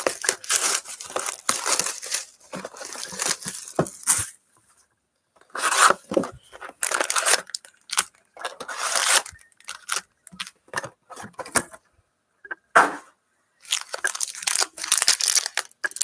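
Plastic and foil packaging of 2018 Panini Prizm football cards being torn open and crinkled, in a string of separate rips and rustles with short pauses between them.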